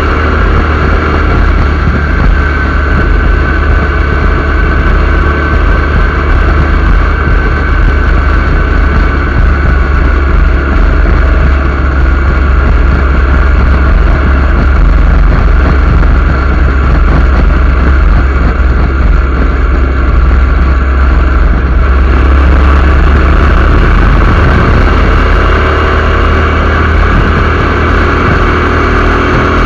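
Motorcycle riding at highway speed: loud, steady wind rush buffeting the microphone, with the motorcycle's engine and road noise underneath.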